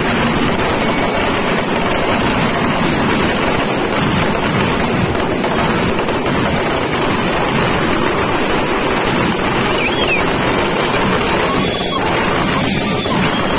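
Firecrackers going off at close range in a continuous, dense din with no gaps, loud and even throughout.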